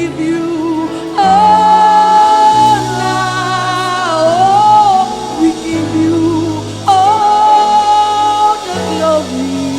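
Gospel worship singing: a single voice holds long notes with vibrato over sustained keyboard chords and bass. The two longest held notes start about a second in and about seven seconds in.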